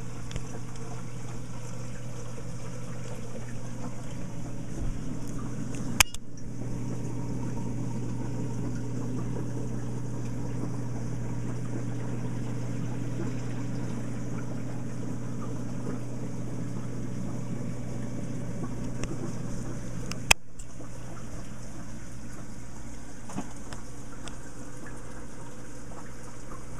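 Reef aquarium's water circulation: a steady low pump hum with water trickling and splashing. Two sharp clicks, about six seconds in and again near twenty seconds.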